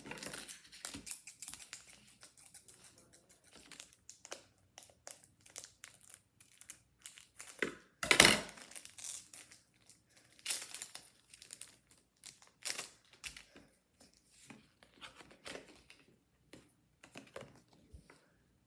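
Foil Pokémon booster pack wrapper crinkling and being torn open by hand: a string of short crackles and rustles, the loudest tear about eight seconds in. Softer crinkles and card handling follow.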